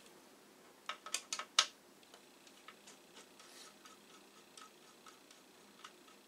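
Small screwdriver working a machine screw out of a plastic disk-drive case: a quick cluster of sharp clicks about a second in, then faint, irregular ticks as the screw is turned.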